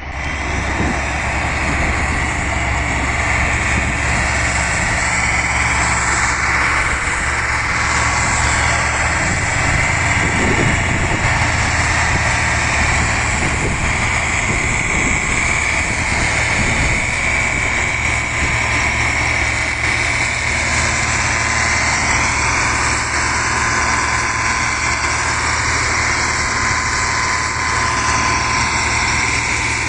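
Heavy diesel engine of a Kirovets K-700 tractor running steadily, with a constant whine near 2 kHz over the low engine note.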